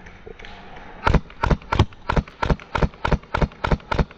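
An airsoft gun firing a rapid string of single shots, about three a second, starting about a second in: ten sharp cracks in all.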